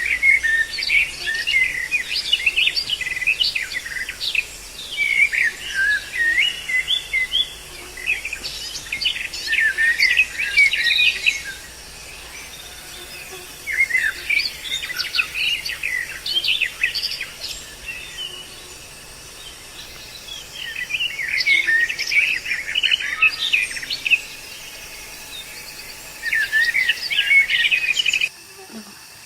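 Songbird song in bouts of rapid, warbling phrases a few seconds long, with short gaps between; it cuts off suddenly near the end.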